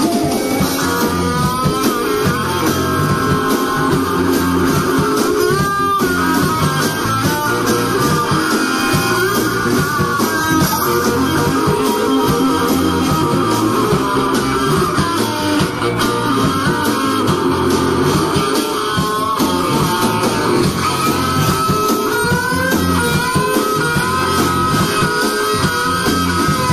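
Live rock band playing an instrumental passage: an electric guitar lead with bending notes over a repeating bass line.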